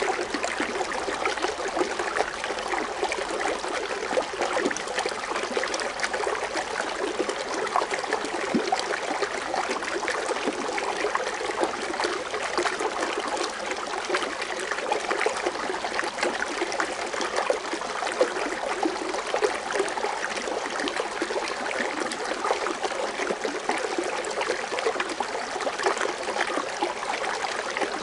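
Foaming water fountain splashing and bubbling steadily, a dense stream of small splashes with no pauses.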